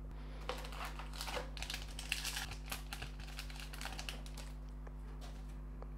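Foil wrapper of a trading-card pack crinkling and crackling as it is torn open and the cards are pulled out. A run of small crackles and clicks lasts about four seconds, then dies away.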